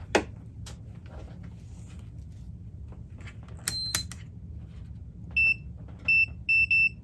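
Digital multimeter beeping: four short, high beeps in the last two seconds, the last three close together. Before them come handling clicks and one shorter, higher beep as the meter is picked up.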